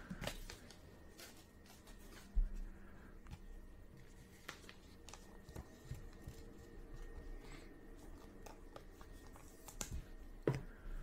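Baseball trading cards being handled and slid against one another in the hands, making faint rustles and soft clicks. There is a low thump about two and a half seconds in and another near the end.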